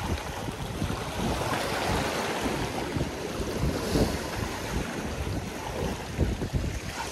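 Wind buffeting the microphone in uneven gusts, over small waves washing and fizzing against a rocky shoreline.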